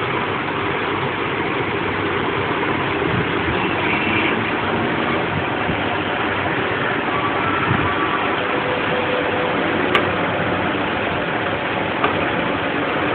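Steady rushing background noise with no clear source, and two small clicks in the last few seconds.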